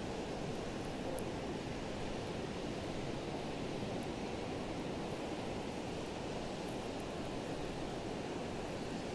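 Steady wind noise on the microphone, mixed with the wash of Gulf surf on the beach.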